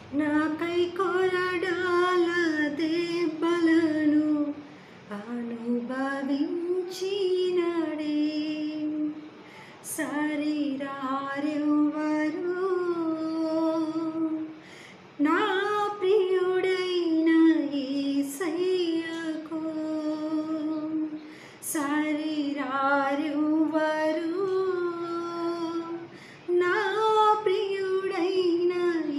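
A woman singing a Telugu Christian devotional song (kirtana) solo with no accompaniment, in phrases of about five seconds each with short breaths between them.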